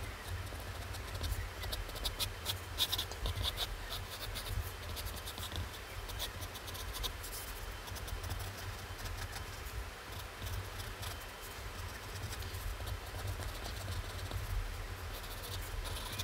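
Wooden graphite pencil sketching on a sheet of paper: a run of short, quick scratching strokes.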